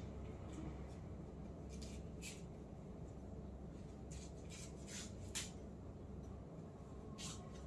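Scissors snipping at the packaging of a canvas board: a faint scatter of short, sharp snips and rustles at irregular intervals, the clearest about five and a half seconds in.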